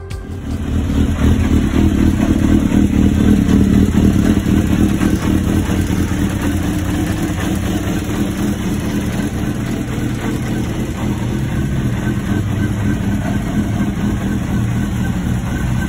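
2002 Suzuki GSX-R1000's inline-four engine idling steadily, coming in about half a second in.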